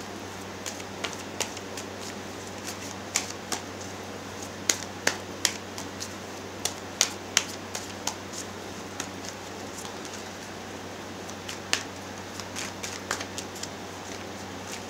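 Tarot deck being shuffled by hand: irregular sharp card taps and snaps over a steady low hum.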